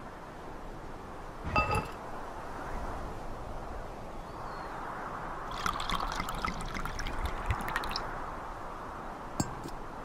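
A wine glass set down on a stone ledge with a ringing clink, then red wine poured from a bottle for about two and a half seconds, splashing and trickling, and a couple of light knocks near the end, over a steady background hiss.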